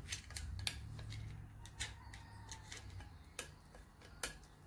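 Scattered small metallic clicks and taps, about seven, as a thin steel pick works at a valve spring retainer and its keepers in a Suzuki Hayabusa's aluminium cylinder head, over a low hum that fades after about three seconds.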